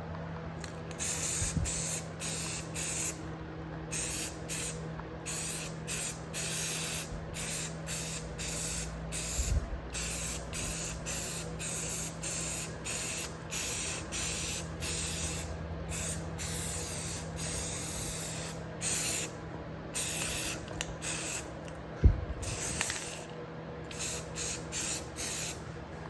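Aerosol spray can of primer sprayed in many short bursts, each a sharp hiss, coating bare metal. A single sharp knock about 22 seconds in.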